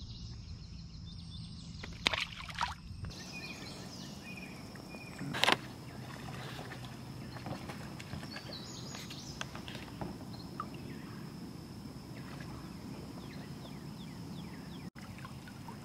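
Quiet river ambience around a kayak with a faint steady high hiss, broken by a few sharp knocks and small water splashes. The loudest knock comes about five and a half seconds in.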